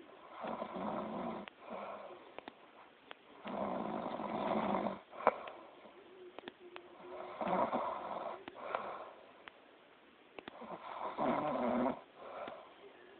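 A sleeper snoring loudly, four snores about three seconds apart. A short sharp click falls between the second and third snore.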